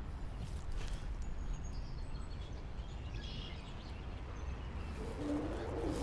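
Steady low outdoor rumble with a few faint bird chirps, one a little past a second in and a small cluster about halfway through.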